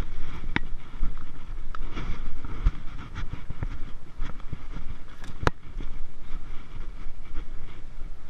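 Low, steady rumble of wind and handling noise on a GoPro's microphone, with scattered knocks and scrapes and a sharp click about five and a half seconds in.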